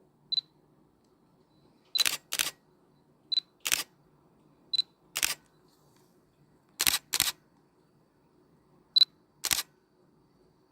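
Camera shutter clicking about seven times, some in quick pairs. Most clicks follow a short high beep like a camera's focus-confirm tone. Between them there is silence.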